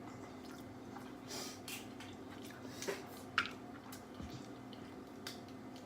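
Wet eating sounds from seafood: a few short squishy clicks and smacks, spaced irregularly, over a faint steady hum.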